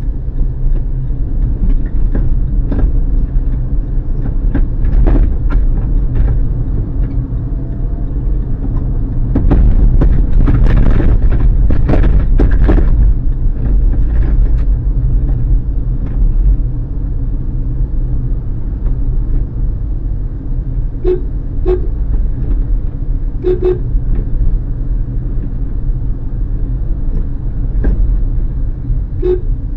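Steady low rumble of a car driving in traffic, picked up by a dashcam, louder for a few seconds about a third of the way in. Brief horn toots twice about two-thirds of the way in, once more soon after, and again just before the end.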